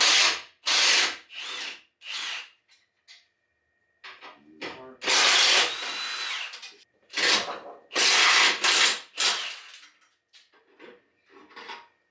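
Cordless power drill run in short trigger bursts while loosening fasteners: four quick bursts, a pause, one longer run of about a second and a half, then three more quick bursts, with faint clinks of parts near the end.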